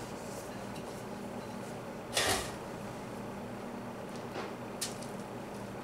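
A stainless steel mixing bowl and plastic spatula handled while batter is tipped into a metal loaf pan: one short knock about two seconds in, then a fainter knock and a light click, over a steady low background hum.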